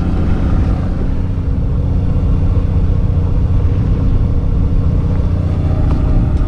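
Steady low drone of the fishing boat's engine running, with a few constant low tones under it.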